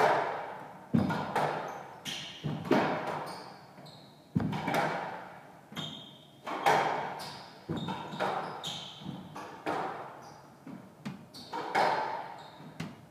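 A squash rally: sharp cracks of the racquet striking the ball and the ball hitting the walls, one or two a second, each ringing out in the court. Short high squeaks of court shoes on the wooden floor come in between.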